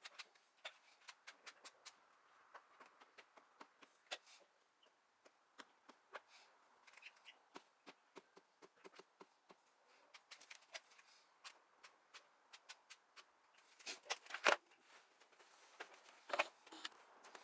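Faint, scattered clicks and light taps of hands and tools at work, with two louder knocks near the end.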